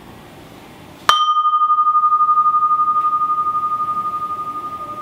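A sculpture vessel struck once about a second in, ringing with one clear high tone that slowly fades, pulsing slightly as it rings; a fainter higher overtone dies away within the first second.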